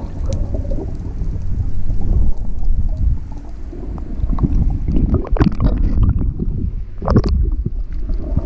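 Muffled underwater sound of water moving around a camera held below the surface: a steady low rumble, with a few short bubbling bursts in the second half as air bubbles pass the lens.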